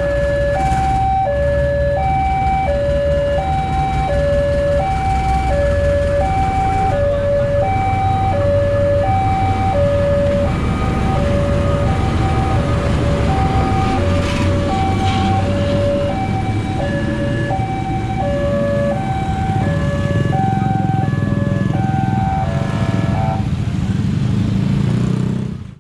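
Railway level-crossing alarm sounding an electronic two-tone chime, high and low notes alternating about once a second, over the heavy low rumble of a diesel-electric locomotive passing close by. The alarm stops a couple of seconds before the end.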